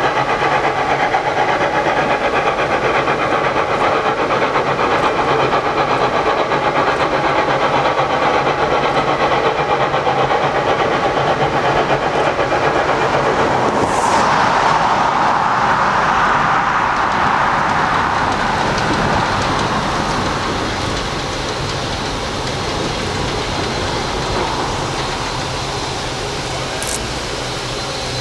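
Saxon narrow-gauge steam locomotive IK No. 54 approaching with its train, giving a continuous running and exhaust sound. About halfway through there is a louder rush lasting a few seconds.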